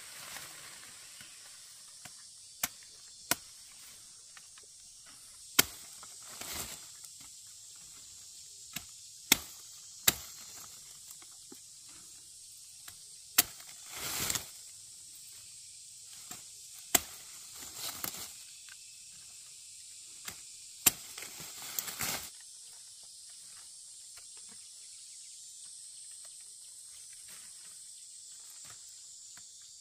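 Machete blade chopping through the stalks of forest-fruit clusters in sharp single strikes, about eight at irregular intervals, some followed by rustling of leaves and stalks; the strikes stop about two-thirds of the way through. Steady high chirring of insects runs underneath.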